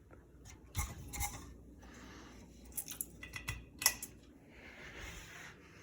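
A few faint, irregular clicks and scratches over a low steady background, scattered through the first four seconds, with a soft rustle near the end.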